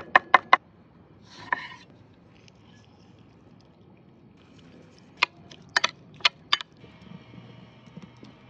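Chef's knife chopping fresh parsley on an end-grain wooden cutting board: a quick run of sharp knocks at the start, then a few more sharp knocks past the middle. A faint steady hum comes in during the last second or so.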